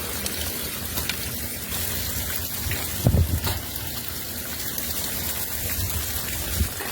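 Heavy hurricane rain with floodwater running and gushing, a steady rushing hiss. A brief low rumble about three seconds in.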